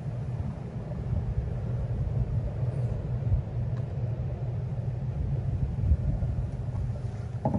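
Low rumble of a pair of Class 37 diesel locomotives' English Electric V12 engines working hard, heard from a distance, growing a little louder.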